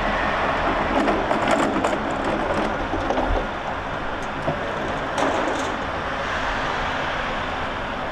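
Steady rumble of a passing vehicle, easing off slightly after about three and a half seconds, with a few brief clicks and rattles.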